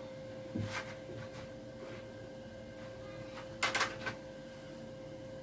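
Short clicks and rustles of small parts being handled, once about half a second in and a louder cluster near four seconds in, over a steady faint hum.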